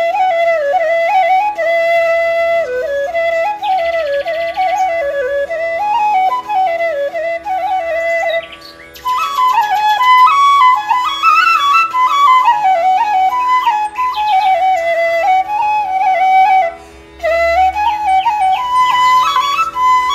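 Background music: a solo flute melody over a steady drone, with two brief pauses, one about halfway through and one near the end.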